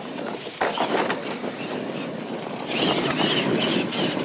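Radio-controlled monster trucks running on a dirt track: electric motors and gears whining over tyre noise on dirt, with a sharp knock about half a second in. The whine gets louder and higher near three seconds in.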